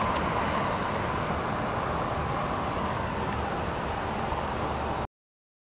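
A pickup truck driving away on a paved street: steady tyre and engine noise with a faint tone drifting slightly lower in pitch, cutting off suddenly about five seconds in.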